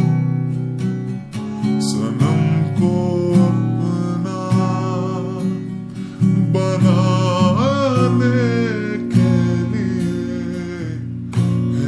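Instrumental passage of a slow lofi track: plucked guitar notes over a soft, steady beat.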